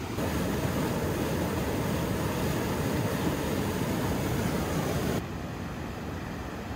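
Rushing whitewater rapids, a steady, even roar of water. It jumps louder just after the start and drops to a quieter rush about five seconds in.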